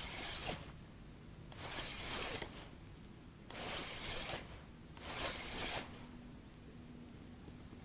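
Spinning reel being cranked in short bursts, about a second of handle turns at a time with pauses of a second or so between, four times: the stepped retrieve of a jig.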